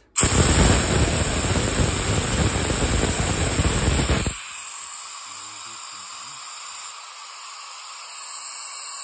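Compressed air venting from a railroad single car test device as the brake pipe pressure is reduced, dropping almost 10 pounds. A loud hiss starts abruptly, then falls to a quieter hiss with a thin high whistle about four seconds in.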